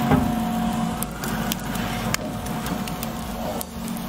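Steady electric hum of a high-heat overhead steak broiler running, with a few sharp metallic clicks of a utensil and the cast-iron grate scattered through it.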